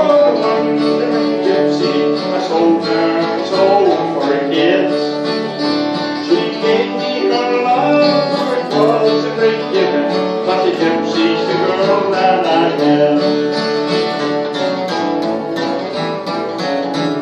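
Live country music: a strummed acoustic guitar with a second guitar, and a man singing over them.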